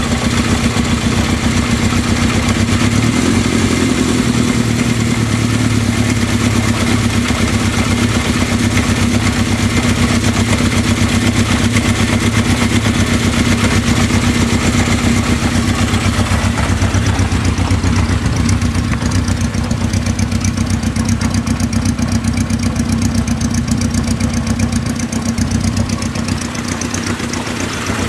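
Kawasaki KZ650 air-cooled inline-four motorcycle engine running at a steady idle, with a brief slight rise in engine speed about three seconds in and the sound easing a little near the end.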